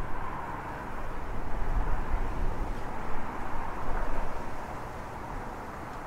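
Outdoor woodland ambience: a steady rushing noise with uneven low wind rumble on the microphone, swelling about a second in and easing off just before the end.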